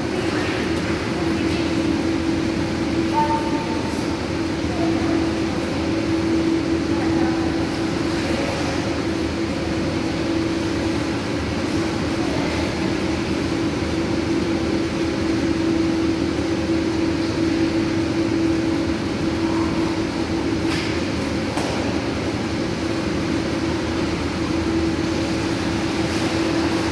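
Steady machinery hum of an indoor pool room, holding one constant low tone, with light splashing from a child swimming.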